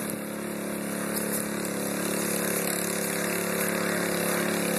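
Gasoline-engine water pump running steadily, pumping floodwater out of a basement, with a continuous rush of noise underneath.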